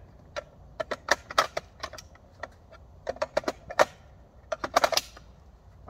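Irregular sharp clicks and knocks of hands handling hard objects on a plastic folding table, in quick clusters about a second in and again from about three to five seconds in.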